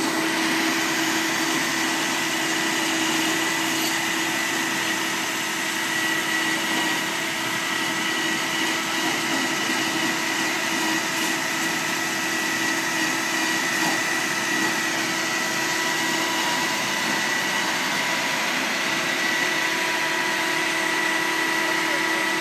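Mobile paper-shredding truck running its shredder: a steady machine drone with a constant high whine over a rushing hiss, holding at an even level.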